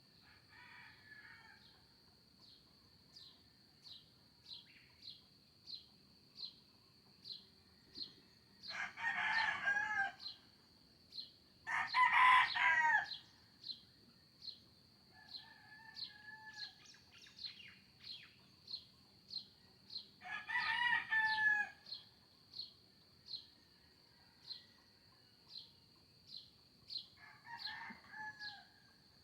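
Roosters crowing again and again, three loud crows of about a second and a half each and fainter crows from farther birds between them. Under them runs a steady high insect trill with a short high chirp repeating about every two thirds of a second.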